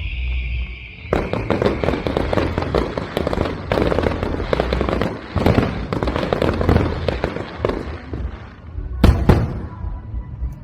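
Aerial fireworks: a high whistle fades out, then from about a second in comes a dense rapid crackle of many small bursts, and there is one loud bang near the end.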